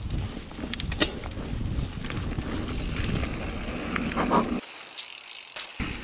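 Mountain bike rolling fast down a dirt trail: steady tyre and wind noise on the on-bike camera, with a few clicks and rattles from the bike. Near the end the rolling noise drops away for about a second as the bike is airborne over a dirt tabletop jump, then comes back on the landing.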